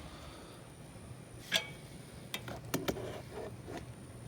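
Several sharp clicks and taps, the loudest about one and a half seconds in and a few more spread over the next two seconds, over a faint low hum.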